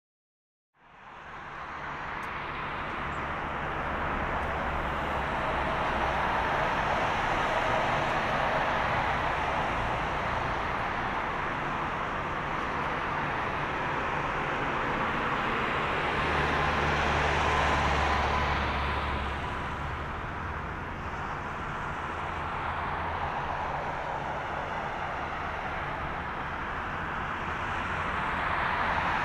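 Twin GE90 turbofan engines of a Boeing 777 freighter on final approach, a steady broad rushing jet noise that fades in about a second in, swells around the middle and builds again near the end as the aircraft comes in over the runway to land.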